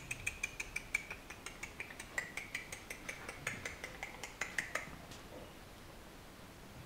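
Cat licking its paw while grooming: quick, even clicks of the tongue, about four or five a second, which stop about five seconds in.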